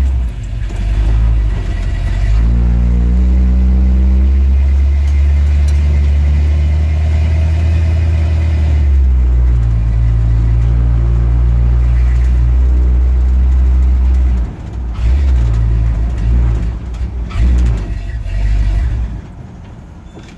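Chrysler 383 big-block V8 of a 1970 Dodge D100 pickup, heard from inside the cab, rumbling through a new exhaust as the truck pulls away and cruises. About 14 seconds in it falters and runs unevenly, and near the end it dies out. The driver thinks the stall may come from running low on gas while braking and turning.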